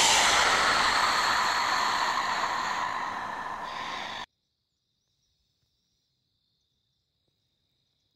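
A loud, hissing sound-effect hit for the opening logo that fades away over about four seconds and then cuts off suddenly. After it, only a faint, steady, high insect chirring remains.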